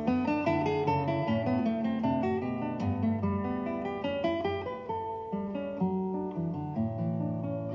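Background music: solo acoustic guitar playing a steady run of quick plucked notes.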